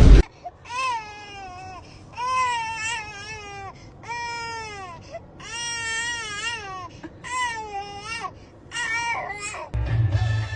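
A dog whining and crying in a series of about six high, drawn-out cries, each rising then falling in pitch. A loud knock sounds at the very start, and music comes in near the end.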